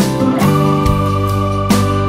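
Instrumental background music with sustained chords and a run of struck notes.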